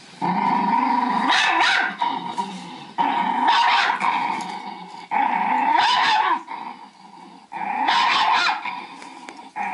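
A Yorkshire terrier makes four long vocal sounds a few seconds apart. Each lasts a second or two at a fairly steady pitch, somewhere between a growl and a howl.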